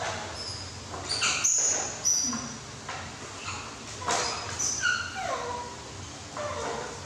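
Baby macaque giving a run of short, high-pitched squeaks and whimpers, several sliding down in pitch: a young macaque begging for food. A few sharp knocks sound between the calls.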